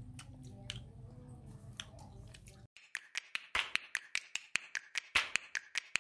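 A low, steady room hum, then from about two and a half seconds in a rapid, irregular series of sharp clicks and pops, about five a second, which are the sound effects of an animated end screen.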